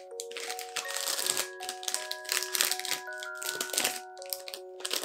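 A clear plastic gusseted treat bag crinkling in irregular bursts as it is handled and opened, over background music with held bell-like notes.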